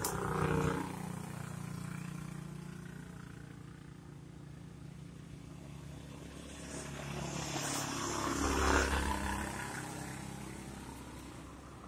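A steady low engine hum, with a vehicle passing that swells to its loudest about eight to nine seconds in and then fades.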